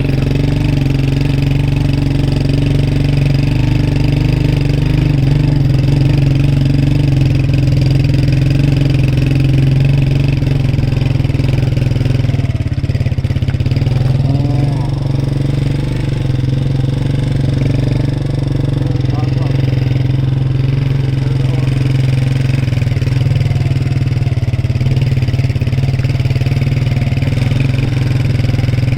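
A vehicle engine running steadily with a constant low hum that holds the same pitch throughout.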